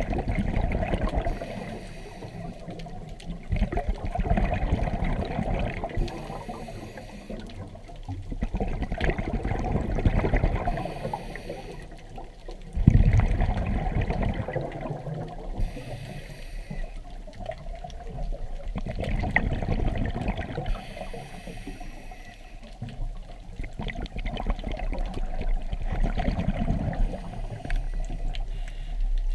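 A scuba diver breathing through a regulator underwater: bubbles burbling out in surges on each exhale, with a short hiss on each inhale about every five seconds.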